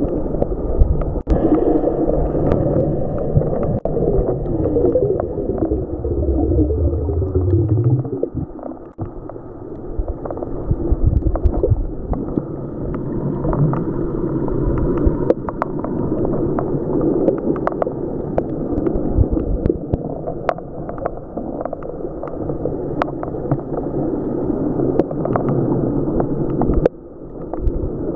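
Underwater sound of waves surging over a shallow weedy reef, heard from inside the water: a steady churning rush full of bubbles, with many sharp crackles and clicks. A low droning tone rises in pitch through the first eight seconds or so.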